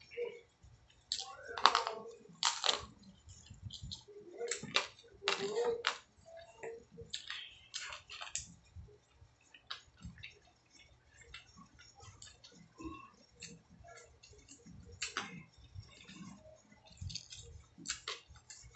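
Close-miked eating sounds: a person chewing fried pork chop and rice, with irregular wet mouth clicks and smacks. A few louder bursts come in the first six seconds.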